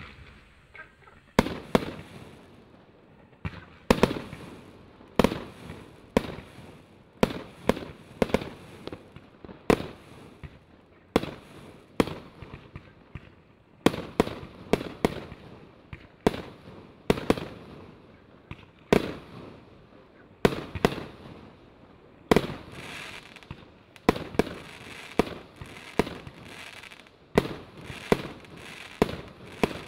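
A 49-shot, one-inch fireworks battery (cake) firing shot after shot. Sharp bangs of shells launching and bursting come about one to two a second, often in quick pairs, and each fades out in a short tail.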